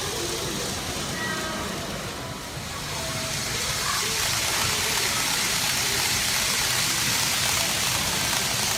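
N gauge model train running on the layout track, a steady hiss that gets louder about three to four seconds in as the train comes closer, with faint voices in the background early on.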